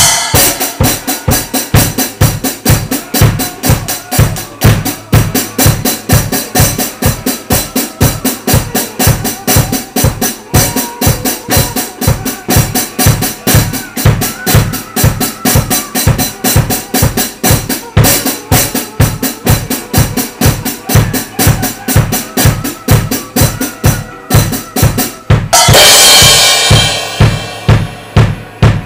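Drum kit played in a steady, fast beat of bass drum and snare hits with cymbals. About 26 seconds in, a cymbal crash rings out and fades.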